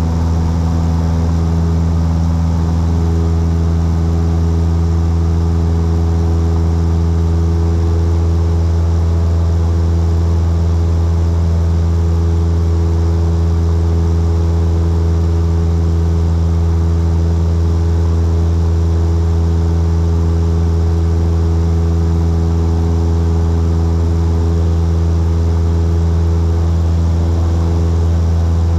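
Light aircraft's piston engine and propeller running steadily in flight, heard from inside the cabin. It is a constant, even-pitched drone.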